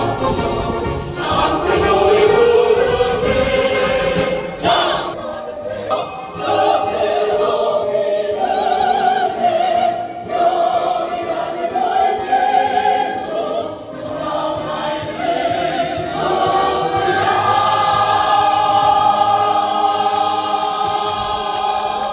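Choir singing in several parts, with long held notes; near the end the voices hold one chord for several seconds.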